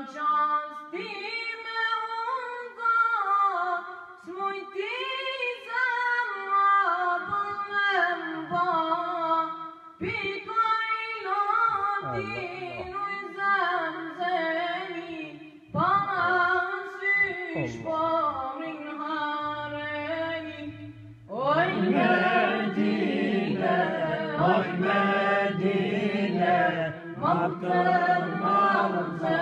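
A teenage boy singing an Albanian ilahi, an Islamic devotional hymn, unaccompanied, in long ornamented phrases with short breaks for breath. About 21 seconds in, the sound grows fuller and heavier in the low range, like more voices joining the chant.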